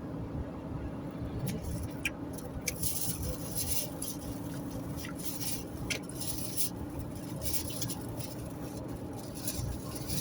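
Steady engine and road drone heard inside a car driving along a highway, with scattered faint ticks and clicks throughout.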